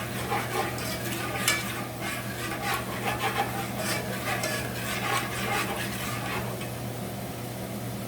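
A utensil stirring and scraping in a pan of melted butter and Nashville hot seasoning over low heat, with irregular clinks and scrapes over a steady frying sizzle.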